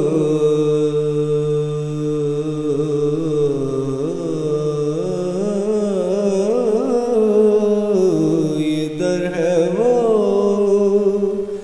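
A man singing a naat, drawing out long, ornamented notes without clear words over a steady low drone.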